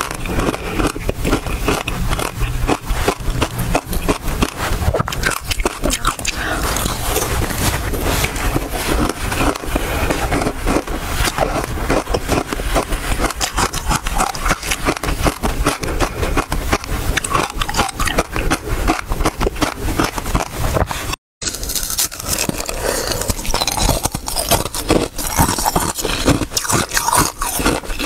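Close-miked crunching and chewing of ice frozen with basil seeds: rapid, irregular crackling bites and crunches throughout, broken once by a momentary dropout about three quarters of the way through.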